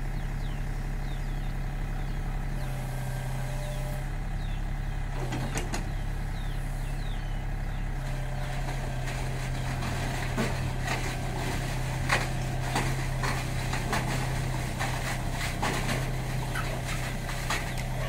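Sany SY35U mini excavator's diesel engine running steadily while it is unloaded from a truck's flatbed, with short metallic clanks and knocks, more frequent from about ten seconds in.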